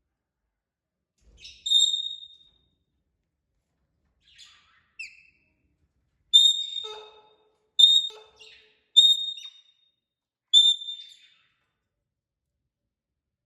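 A parrot whistling: five short, loud, high whistles at the same pitch, spaced a second or more apart, each trailing off into a little chatter, with a few quieter chirps and a short falling note in between.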